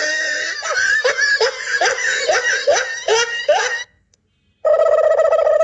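A high, repeated laugh, each short burst rising in pitch, about two a second for some four seconds. It breaks off into a brief silence, then a steady held tone starts near the end.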